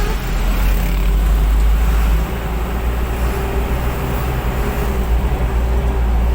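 Motor vehicle engine running steadily with road and traffic noise, a deep low rumble with no breaks.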